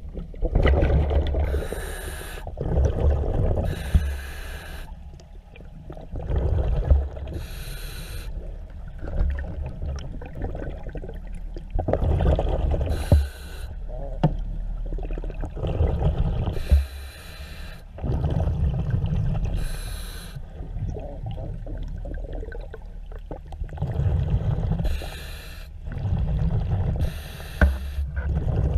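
Diver breathing through a regulator underwater, about eight breaths: a short hiss on each inhale alternating with a low bubbling rumble of exhaled air.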